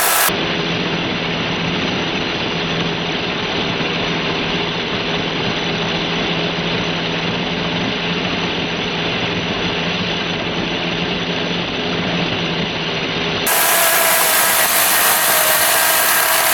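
Teccpo 40-volt cordless electric chainsaw running and cutting through a dead log, its motor and chain making a steady whine. Just after the start the sound abruptly turns duller and lower. About 13 seconds in it switches back to a louder, higher whine.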